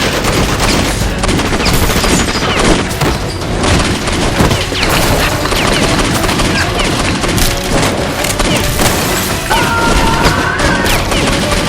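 Rapid gunfire and explosion sound effects, dense and continuous, over music.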